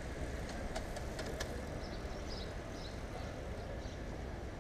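Steady wind rush and tyre noise on the microphone of a camera riding along on a moving bicycle, heaviest in the low end, with a few light clicks and rattles in the first second and a half.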